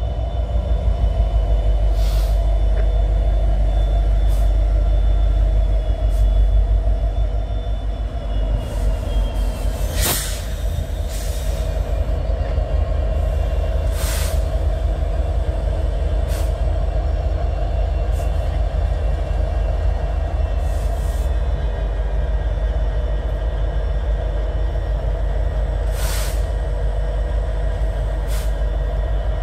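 Norfolk Southern diesel locomotives running close by with a heavy, steady low rumble and a constant engine drone as the train creeps past. Short, sharp noises cut through now and then, and there is a faint high squeal for a few seconds early on.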